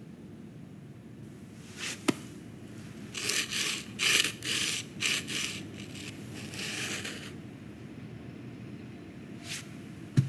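Film sound effects: a sharp click about two seconds in, then a run of short scraping, rubbing noises, and another click near the end.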